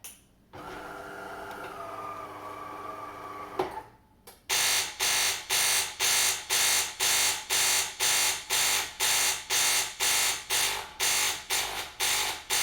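De'Longhi Caffè Corso ESAM2800 espresso machine's water pump, started from the hot-water button. It hums steadily for about three seconds, then there is a click, and then a very loud buzzing pulses on and off about two and a half times a second: the pump is failing to move any water.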